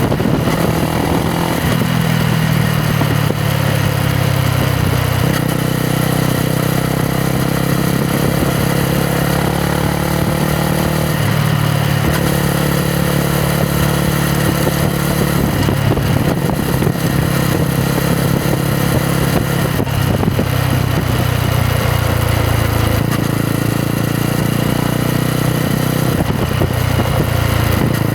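Yamaha MT-125's single-cylinder four-stroke engine running under way during a ride. Its note drops about a second in, then holds and shifts up and down in pitch several times, over a steady rush of wind noise.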